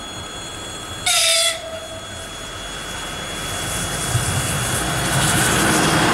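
EP2K electric locomotive hauling a passenger train: a short horn blast about a second in, then the rumble of the approaching train growing steadily louder as it draws level.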